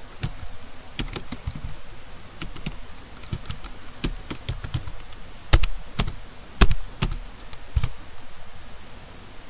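Typing on a computer keyboard: a run of uneven key clicks, with two much louder key strikes a little past halfway.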